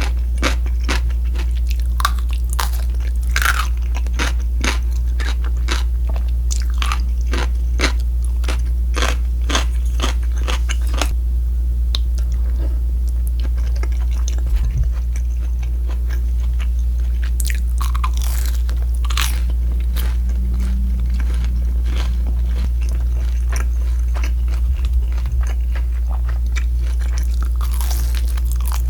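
Close-miked biting and chewing of crisp fried pork (sweet and sour pork and kkanpungyuk): a quick run of crunches for about the first ten seconds, quieter chewing in the middle, then more crunching bites later on. A steady low hum sits underneath throughout.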